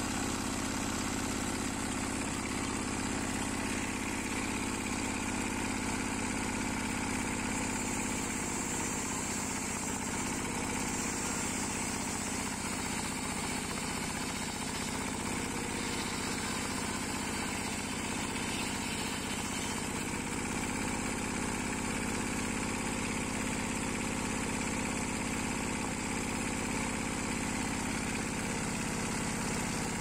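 Single-cylinder engine of a Landmaster two-wheel tractor running steadily, belt-driving a portable sawmill's spinning circular saw blade; its note changes slightly through the middle.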